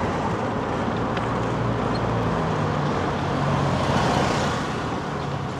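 Street traffic: motor vehicles running by with a steady engine hum and tyre noise, one passing closer and louder about four seconds in.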